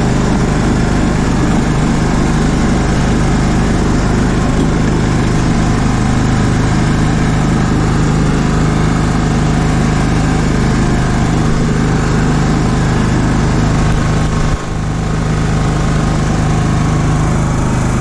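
Cub Cadet LTX 1045 hydrostatic riding mower's engine running steadily at a constant speed, with one brief click and dip in the sound about three-quarters of the way through.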